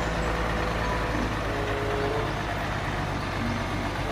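Truck engine running steadily, a vehicle sound effect.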